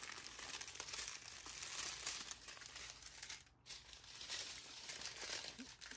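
Packaging crinkling and rustling as a kit's contents are handled, with a short lull about three and a half seconds in.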